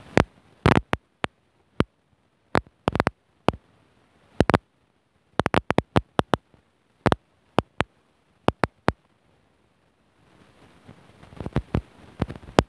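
Scattered sharp clicks and knocks, some in quick pairs and clusters, from an alternator being handled and set down on cardboard. Near the end a faint hiss comes in with another bunch of clicks.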